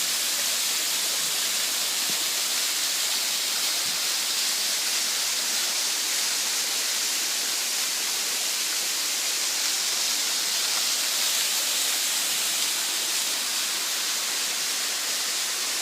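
Waterfall: falling water gives a steady, loud hiss.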